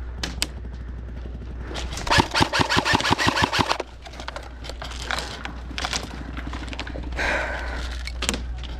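Airsoft rifle firing a rapid burst of about seven shots a second for nearly two seconds, with a few single sharp clicks before and after.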